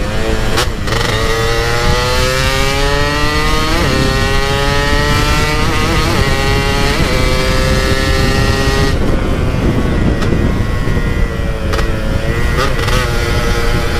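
Two-stroke scooter engine under way. Its note rises as it accelerates over the first few seconds, then holds steady. About nine seconds in, the throttle eases and the note drops away, then it picks up and holds again near the end, with wind rushing over the microphone.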